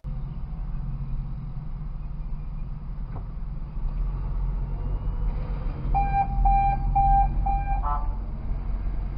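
Low steady hum of a stopped car idling, heard from inside the cabin, with a quick run of about five short, evenly spaced high beeps a little past the middle.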